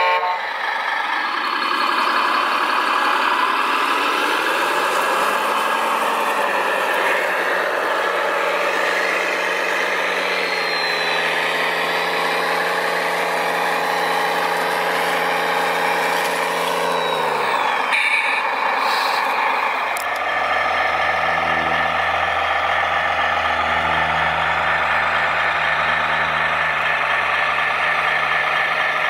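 Remote-control construction models running: motors whining and rising and falling in pitch as the machines are worked. About 18 seconds in the sound changes to a steadier whine over a deeper hum.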